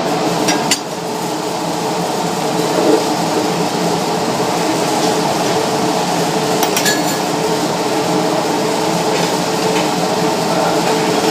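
Steady hiss of a gas welding torch flame, with sharp metallic clinks near the start and about seven seconds in.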